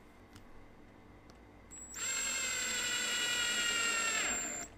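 Cordless drill running for about three seconds at a steady whine that starts about two seconds in, then slows and falls in pitch as the trigger is released.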